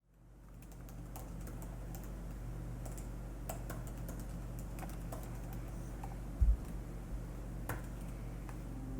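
Typing on a computer keyboard: irregular keystrokes over a steady low hum, with one brief low thump about six and a half seconds in.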